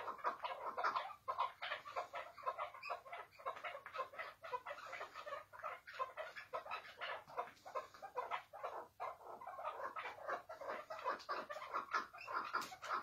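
Caged chukar partridge calling: an unbroken run of short chattering notes, several a second, the low rapid 'hıngırma' call.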